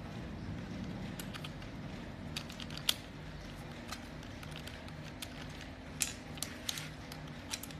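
Scattered small metal clicks and clinks as a chainsaw attachment housing is handled and fitted onto an angle grinder head with a thin metal tool, over a low steady hum.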